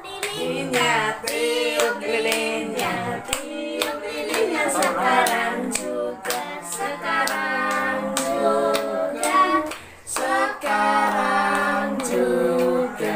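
Voices singing a birthday song over steady, rhythmic hand clapping.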